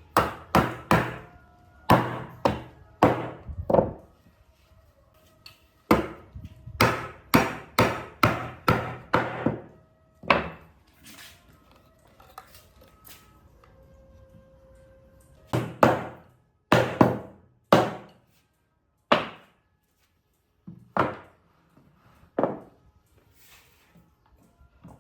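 Wood being struck hard over and over: sharp blows in irregular runs of a few at a time, about two a second, with short pauses between the runs.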